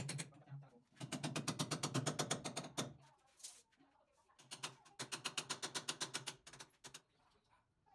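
Rapid, even knocks of a hand hammer on steel rebar being set into a tiled wall. They come in two bursts of about two seconds each, at roughly ten strikes a second.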